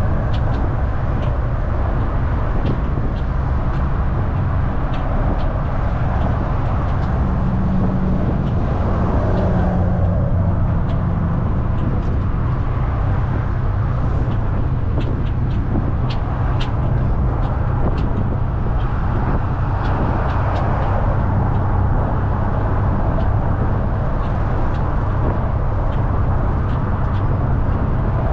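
Double-decker bus driving, heard from on board: a steady low engine and road rumble with scattered light clicks and rattles.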